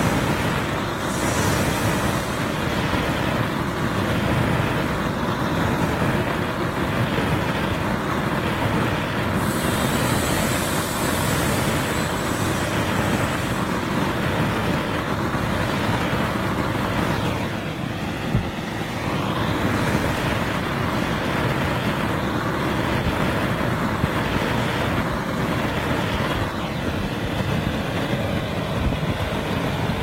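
Hose-fed gas blowtorch burning steadily: a constant rushing hiss with a low rumble beneath it. One brief click sounds a little past the middle.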